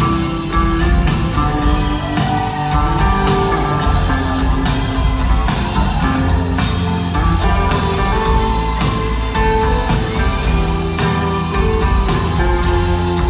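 Live rock band playing an instrumental passage: steady drum kit with guitars and keyboard, loud through the hall's PA.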